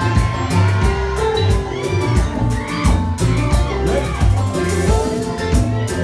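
A live Haitian kompa band playing an upbeat groove: drum kit keeping a steady beat under a repeating low bass line, with acoustic and electric guitars.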